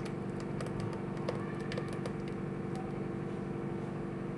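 A steady hum made of a few fixed low tones, with faint scattered ticks and clicks over it.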